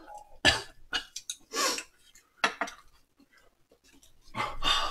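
Eating at the table: chopsticks clicking against ceramic bowls and plates, with mouth noises from eating. There are a few sharp, separate clicks in the first half, then a longer noisy stretch near the end.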